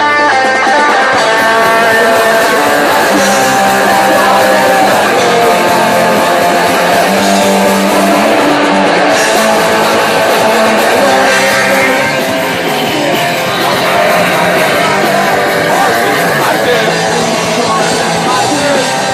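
Hardcore punk band playing live, loud, with electric guitar prominent over the rest of the band.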